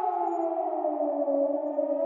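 Civil defense warning siren sounding a nuclear alarm, its wail falling steadily in pitch to a low point and starting to rise again near the end.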